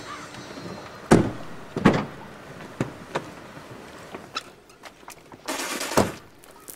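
Two car doors slamming shut about a second apart, then a few light knocks, and near the end a brief hiss that ends in another thud.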